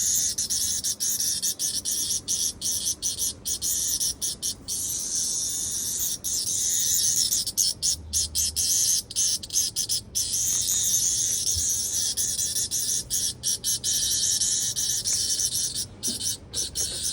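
Cicada buzzing loudly close by: a high, dense buzz that keeps breaking off for an instant and starting again.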